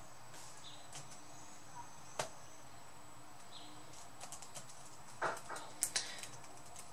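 Key clicks on a Dell Vostro 3550's newly replaced laptop keyboard as it is tested: a single click about two seconds in, then a quick run of keystrokes in the second half.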